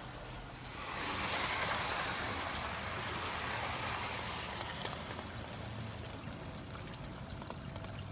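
A model train running past close by on garden railway track: a rushing noise of wheels on the rails swells about a second in and slowly fades away over the next few seconds.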